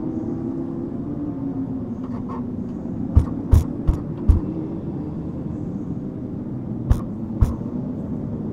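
Legend race car's Yamaha motorcycle engine running at a steady, slowly drifting pitch, broken by sharp knocks: four about three to four seconds in and two more near the end.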